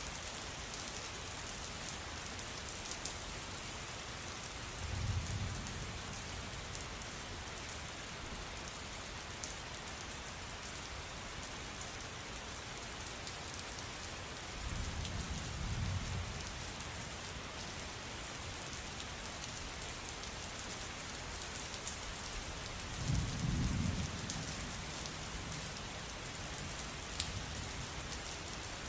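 Steady rain falling, with three short low rumbles of distant thunder, about 5, 15 and 23 seconds in.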